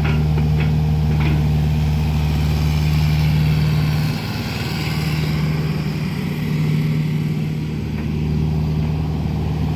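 Diesel engine of a Kubota KX057-4 mini excavator running steadily. Its note drops and quietens about four seconds in, then picks up again near eight seconds.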